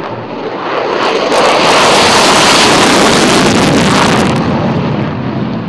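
F-16 fighter jet's single afterburning turbofan engine at full thrust on its takeoff run, a loud rushing jet noise. It swells to a peak about a second and a half in, holds, then fades near the end as the jet climbs away.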